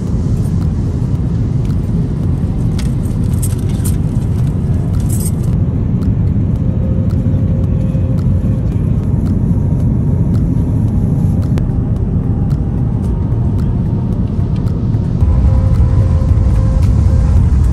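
Steady low rumble of a moving car heard from inside, road and engine noise, getting louder about fifteen seconds in.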